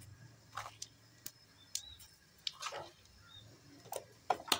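Cumin seeds dropped into hot oil in a frying pan over a very low flame, crackling faintly with scattered clicks and pops, more of them near the end.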